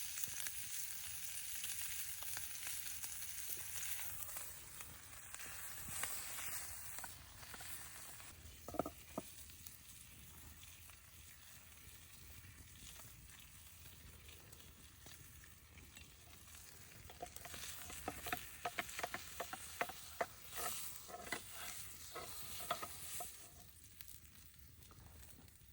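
Meat sizzling as it sears on a hot plate over a wood campfire, a steady hiss that is strongest in the first few seconds and then fades. Scattered sharp pops and crackles, from the fire or the fat, come in the second half.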